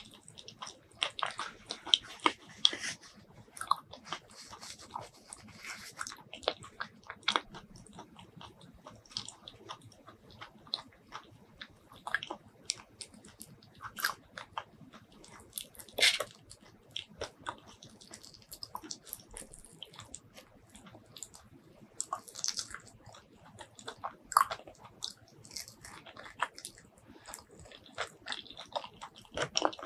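Close-miked eating of mini Thai durian: biting and chewing the soft fruit flesh, with many short mouth clicks and smacks. About midway the hands tear a durian pod open.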